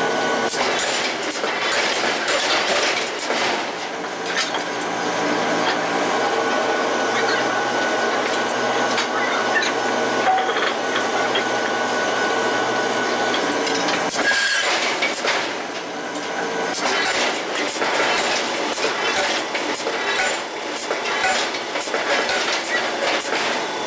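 Forging-plant machinery noise: a continuous mechanical din with scattered clanks and clicks.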